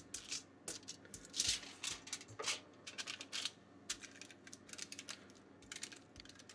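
Aluminium foil crinkling and crackling as a sheet is handled and smoothed flat by hand, in quick irregular crackles.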